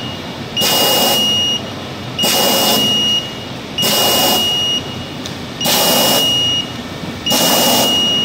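Checkweigher's alarm buzzer sounding in long beeps, about a second on and half a second off, five times, over the steady running noise of the machine.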